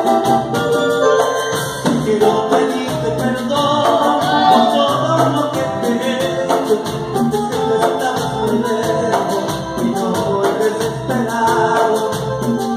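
Live Latin band playing: electric guitar, congas, keyboard and a scraped güiro, with a man singing.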